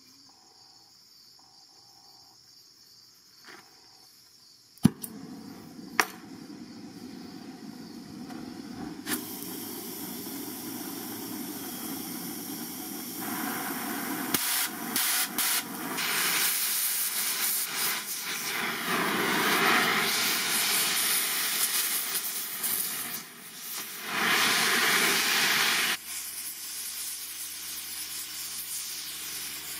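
Oxy-fuel cutting torch hissing as it burns into thick Hardox steel plate. The hiss grows steadily louder, with a couple of sharp clicks before it, and surges strongly in the second half before dropping off sharply near the end.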